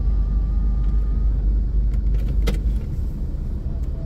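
Low, steady engine rumble inside a car standing on a ferry's vehicle deck. It drops away about three seconds in, just after a sharp click. A faint thin tone sounds during the first second and a half.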